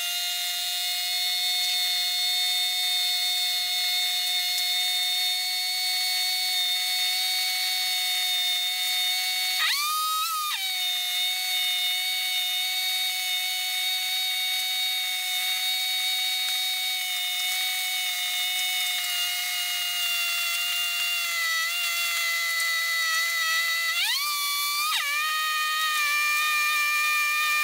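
Car engine running to bleed air from the freshly refilled cooling system, heard as a steady whine that slowly drops in pitch, rising sharply twice for about a second with quick throttle blips.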